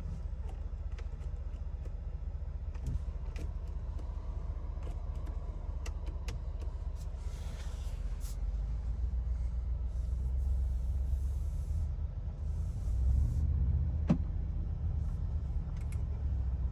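Bentley Bentayga Azure running, a steady low rumble that swells for several seconds past the middle, with scattered light clicks and one sharper click near the end.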